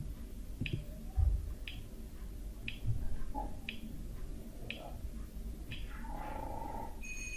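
Quiz countdown-timer sound effect: a clock ticking once a second, six ticks, then a high alarm-clock ring that starts near the end. Two soft low thumps come in the first few seconds.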